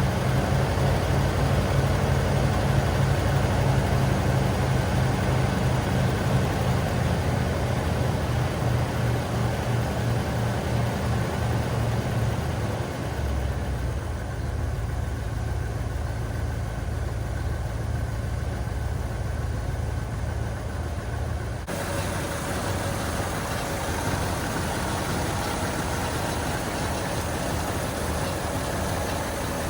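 A 1978 Ford Country Squire's 351 V8 idling steadily just after a cold start. About thirteen seconds in the idle drops lower and a little quieter, and the sound changes abruptly once more about eight seconds later.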